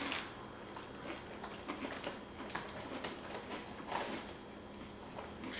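A tortilla chip topped with creamy crab dip bitten with a loud crunch at the start, then chewed with softer, irregular crunching and mouth sounds.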